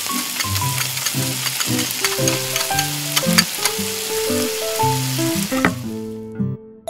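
Hot oil sizzling and crackling in a small steel wok as a spiced onion-and-seafood mixture is stirred with a spatula. The sizzle fades away about six seconds in.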